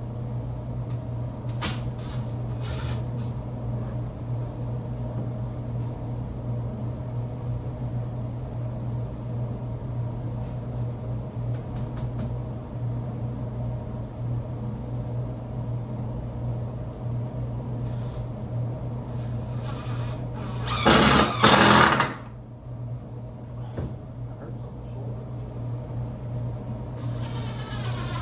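Steady low electric hum of a workshop, with a few light knocks of wood and screws being handled, and a power drill running hard for about a second near the end as it drives a pocket-hole screw.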